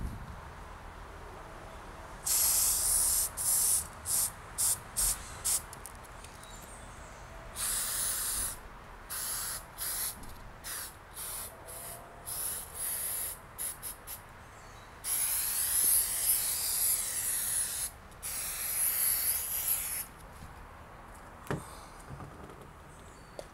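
Aerosol spray paint can spraying in stop-start bursts: quick short puffs and several longer hisses lasting a few seconds each. A single sharp click comes near the end.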